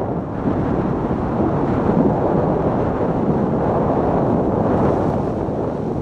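A sport luge's runners with TiPLEX runner rails sliding and scraping over packed snow at speed, a steady rough rumble, with wind rushing over the camera microphone.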